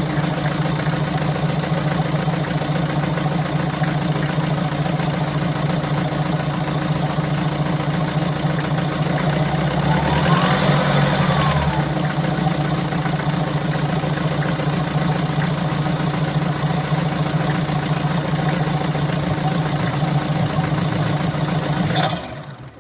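BMW 525d F10's 2.0-litre diesel engine running steadily, with one brief rev about halfway through; it stops abruptly near the end. The uneven engine noise is put down by the seller to defective injectors and defective swirl flaps.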